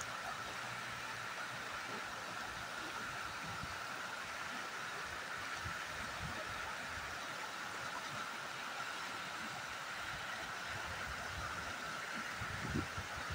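Steady rush of flowing river water, with one brief low thump near the end.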